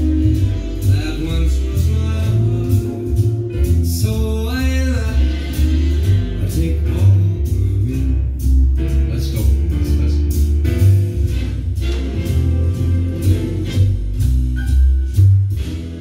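Song with singing over guitar and a heavy bass line, played back through a vintage hi-fi system's loudspeakers.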